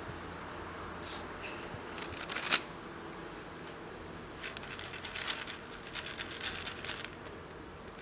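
Dry cat kibble rattling and clicking in a plastic tub as it is handled, in two spells of quick rattles, the sharpest about two and a half seconds in.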